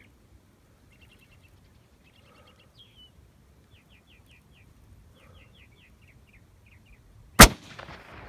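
Small birds chirping in quick short series, then about seven seconds in a single rifle shot from a scoped long-range rifle fired prone. The shot is the loudest sound and echoes away over about a second.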